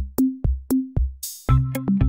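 Electronic background music with a drum-machine beat of kick drum, bass notes and hi-hats. A short noise swell about a second in leads into fuller synth and bass notes about halfway through.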